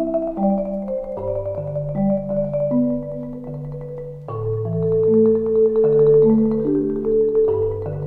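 Instrumental background music: a slow melody of held notes over changing bass notes.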